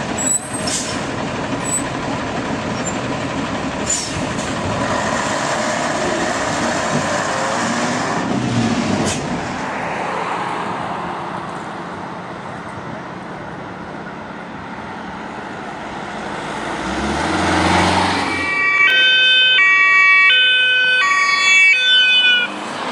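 Road and engine noise of passing vehicles, including a heavy truck. About nineteen seconds in, a German two-tone police siren (Martinshorn) starts, switching between a high and a low note about every 0.7 s.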